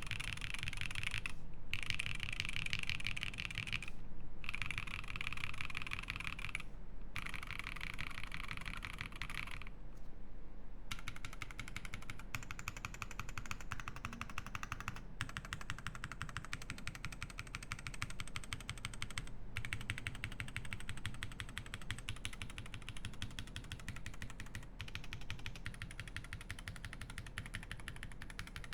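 Fast typing on a Leaf65 mechanical keyboard with lubed Tecsee Jadeite switches. For the first ten seconds the keystrokes come in rapid bursts separated by short pauses, then the typing runs on without a break.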